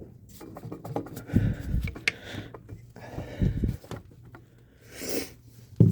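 Metal hand tool scraping and knocking against a two-stroke motorcycle engine's cylinder as it is pried apart, with dull thumps about a second and a half in, at about three and a half seconds, and near the end.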